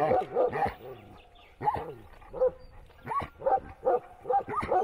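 A dog barking repeatedly, about ten short barks with a pause of about a second near the start.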